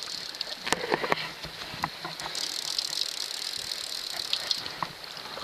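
Stream water rushing steadily over a shallow riffle, with a few scattered sharp clicks.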